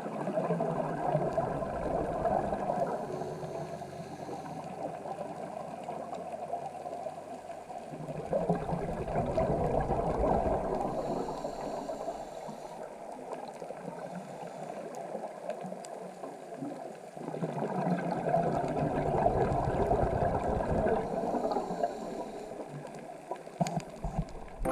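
Underwater sound from a scuba dive: bubbling, gurgling rushes of exhaled air from a diver's regulator, swelling three times at slow, breath-length intervals.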